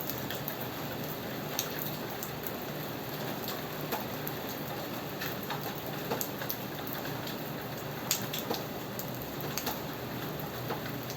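Steady rain falling, an even hiss with scattered sharp drop ticks on a surface.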